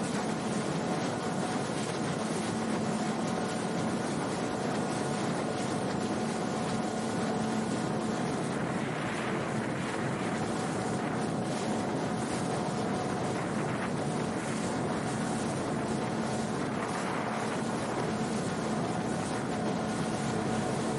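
Small boat's outboard motor running at a steady cruising speed, a constant drone, over the rush of water and wind on the microphone as the hull runs.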